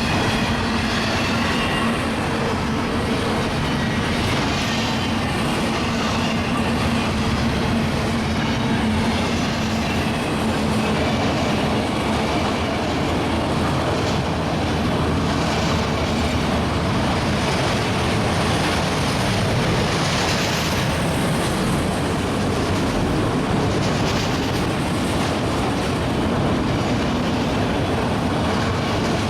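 Florida East Coast freight train rolling past, a steady loud rumble of wheels on rail with clickety-clack.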